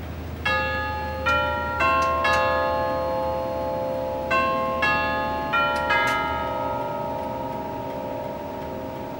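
Elliott of London 1901 grandfather clock's tubular chimes playing a quarter chime: eight struck notes on tuned chime tubes in two phrases of four, the second phrase starting about four seconds in. The tubes then ring on and slowly die away.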